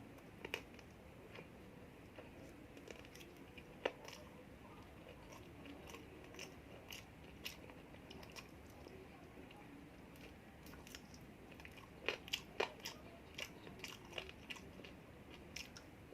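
A person chewing and biting food: scattered sharp clicks and crunches, with a quick run of them about twelve seconds in.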